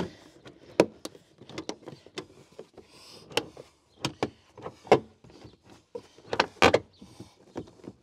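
Plastic rear side trim panel of an Audi TT Mk1 being pressed and worked into place by hand: a run of irregular sharp clicks and knocks, with plastic rustling and creaking between them.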